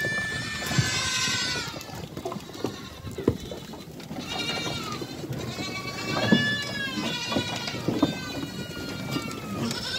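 Several goats bleating over and over at feeding time, the calls coming one after another and sometimes overlapping. A few sharp knocks fall between them.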